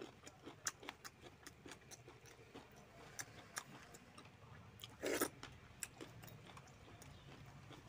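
Close-up eating sounds as rice and chicken-potato curry are eaten by hand from a banana leaf: quick soft mouth clicks and chewing, with fingers working the rice and the steel curry bowl. One short, louder noisy sound comes about five seconds in.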